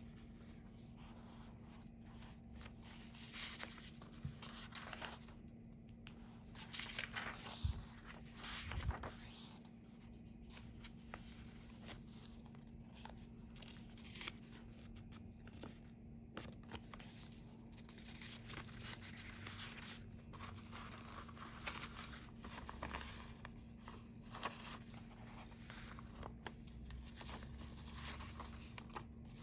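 Paper rustling as junk journal pages and loose paper slips are turned over and handled, in a string of short, crisp rustles and flicks, over a faint steady hum.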